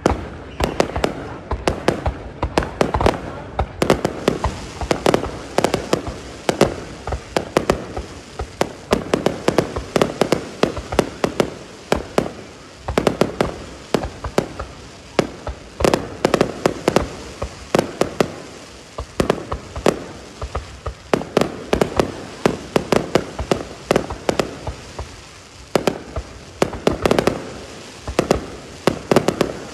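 Fireworks display: a dense, unbroken run of sharp bangs and pops from bursting aerial shells and launches, several a second.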